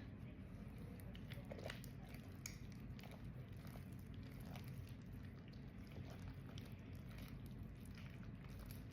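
Homemade glue-and-activator slime being kneaded and pulled by hand, giving faint sticky squelches and small irregular clicks over a low hum.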